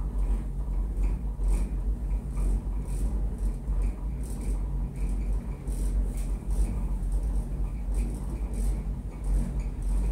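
Cabin of a funitel-type ropeway gondola riding the haul cable: a steady low rumble with a faint hum, and light rattling clicks about once a second.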